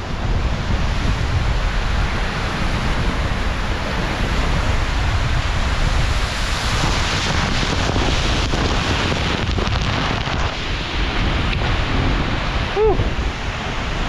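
Seljalandsfoss waterfall close up, a dense steady rush of falling water and spray, with heavy wind buffeting on the microphone as the spray drives across it.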